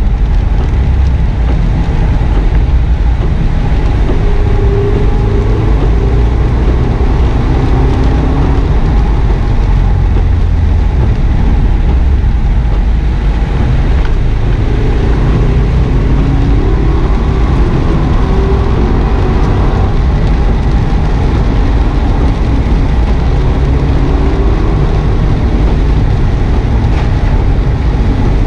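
Inside the cabin of a 2009 Subaru WRX S on a wet track, its turbocharged flat-four engine rising and falling in pitch through braking, downshifts and acceleration, over a heavy low rumble of tyre and road noise from the wet surface.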